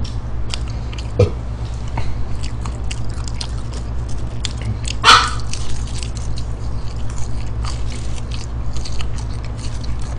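Close-up eating sounds of McDonald's french fries being chewed: soft munching and many small wet mouth clicks, with fingers touching the paper tray liner, over a steady low hum. One short, sharper sound comes about five seconds in.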